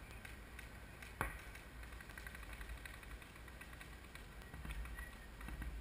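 Low wind rumble on the microphone, with one sharp pop about a second in and a few faint ticks.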